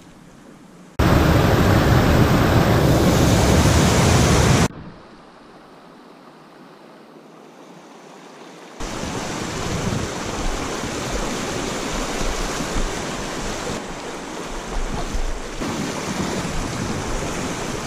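Shallow river water rushing over rocks around a kayak, with wind noise on the camera microphone. A loud rush starts suddenly about a second in and cuts off after about four seconds, drops to a quiet hiss, then a steady rush returns for the rest.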